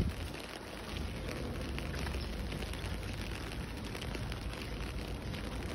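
Steady hiss of light rain on a wet pavement and road, with faint scattered drip-like ticks. A brief low thump comes at the very start.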